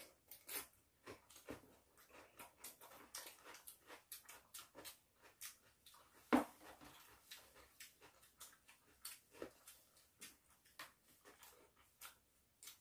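Faint eating sounds: chewing and mouth smacks with wooden chopsticks clicking against dishes, as a stream of short irregular clicks. One sharper knock about six seconds in.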